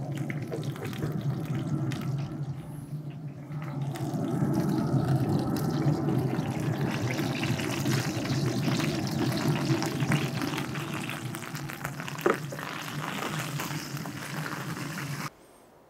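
Pellet smoker running hot at 200 °C: a steady whir from its fan with a rushing hiss over it, getting louder about four seconds in. A single sharp clink comes about twelve seconds in.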